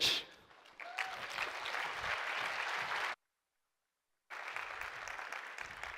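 Audience applauding in a large hall. The sound cuts out completely for about a second midway, then the applause comes back and fades away.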